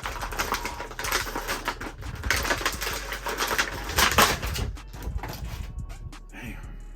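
Plastic toy packaging crinkling and clicking as an action figure is worked free of its tray and tabs: a dense run of crackles and sharp snaps that fades out about five seconds in.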